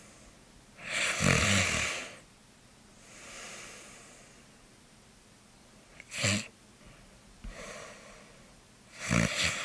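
A sleeping person snoring. There is a long snore about a second in, a quieter breath, a short sharp snort near the middle, another soft breath, and a second loud snore near the end.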